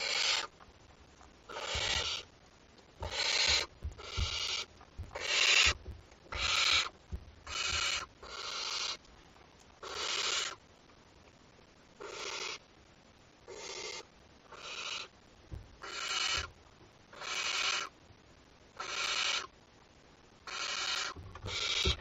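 Young barn owl giving harsh, rasping hisses, one every second or so, each about half a second to a second long: the snoring begging call that barn owl owlets make for food.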